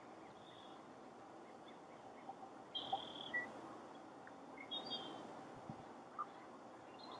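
Faint outdoor ambience at a pond with a few short, high bird chirps, a cluster about three seconds in and another near five seconds.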